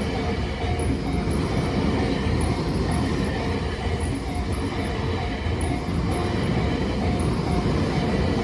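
Tobu Tojo Line level-crossing alarm ringing in a steady repeating rhythm, under the loud, steady rumble of a train running through the crossing.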